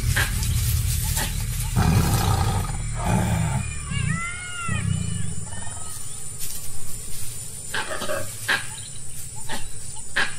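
Tiger growling and snarling as it grapples with a deer, low and loud for the first few seconds. About four seconds in come a few short high calls that rise and fall, then scattered thuds.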